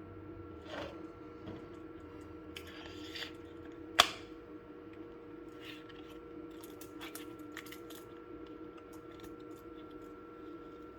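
Light handling noises of a folding knife and its packaging: scattered soft rustles and small ticks, with one sharp metallic click about four seconds in, over a steady electrical hum.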